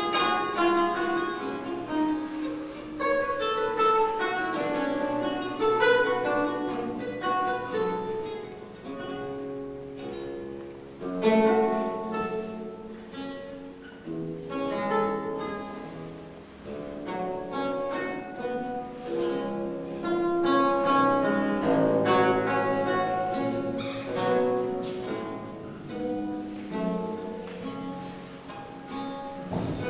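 Solo theorbo: plucked notes and chords, each ringing and dying away.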